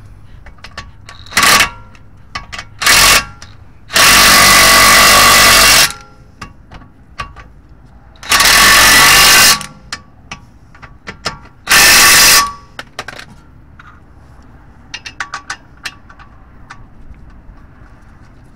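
Impact wrench run in five bursts, two short ones and then three longer ones of about two seconds, a second and a half and under a second, loosening the bolts at the lower control arm's ball joint. Light metal clicks between and after the bursts, from the loosened bolts and the socket being handled.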